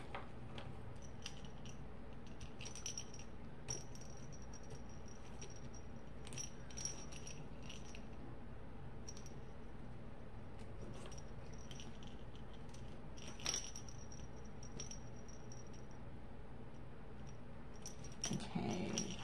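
Small metal keychain hardware (a key ring and clasp) clinking and jingling lightly as it is worked by hand. The clicks are scattered, with one sharper click a little past the middle.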